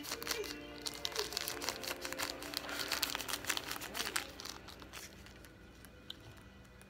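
Small plastic bag crinkling as it is handled and pulled open, a dense crackle for about four seconds that then dies away.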